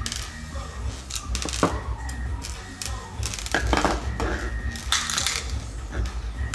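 Clicks, knocks and rattles of hard plastic and metal parts handled on a bench as the pistol grip comes off a G&P M4 airsoft gun's lower receiver and gearbox and the motor wires are moved about. The clicks come in a loose string, busiest from about three and a half to five and a half seconds in.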